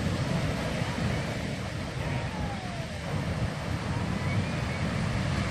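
Heavy surf breaking over rocks and onto the shore: a continuous low rumble of waves without a break.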